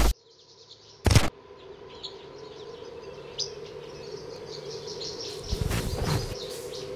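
Wildlife ambience of high chirping calls over a steady low hum. A single loud hit comes about a second in, and broad noisy swells build up in the last second and a half.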